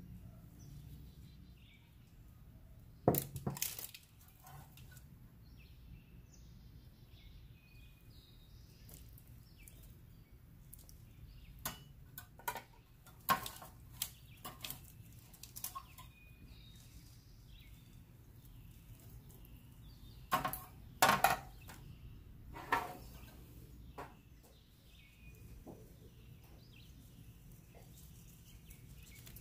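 Serving utensils clinking and clattering against a ceramic platter in short clusters about 3 seconds in, around the middle and again near the two-thirds mark, with birds chirping faintly throughout.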